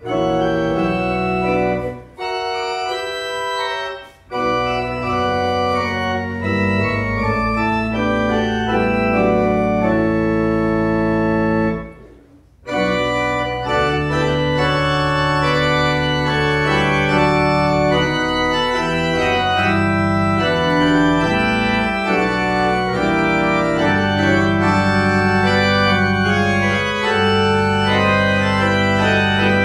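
Organ playing held chords over a deep pedal bass. The music breaks off briefly about two and four seconds in and pauses for about half a second around twelve seconds in, then carries on without a break.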